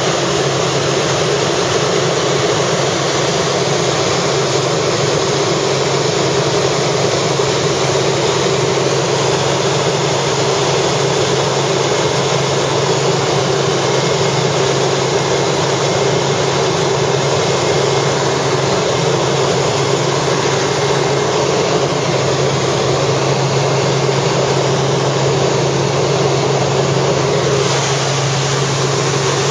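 Helicopter in flight, heard from inside the cabin: a steady drone of engine and rotor noise with a constant low hum that does not change.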